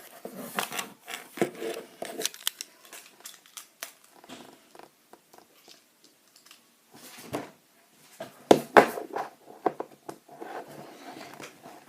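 Plastic LEGO bricks and plates being handled and pressed together: scattered clicks and light rattling, with a few sharper clicks about seven to nine seconds in.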